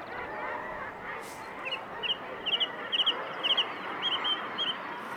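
Common guillemot colony calling, a dense chorus of many overlapping calls. From about two seconds in, a small songbird sings a run of quick, high, paired notes over it.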